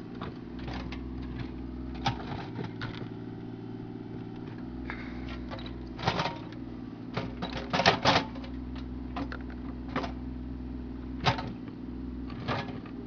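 Mini excavator's diesel engine running steadily while its steel bucket digs in the trench, giving irregular sharp clanks and scrapes on stony ground and ledge rock. The loudest knocks come about eight seconds in, with another sharp one near the end.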